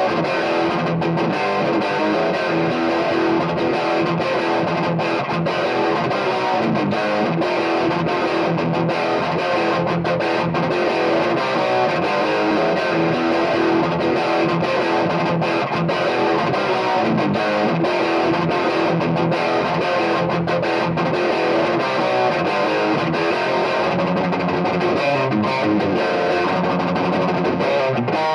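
Heavy metal riffing on a distorted electric guitar played through a Carr Raleigh amplifier.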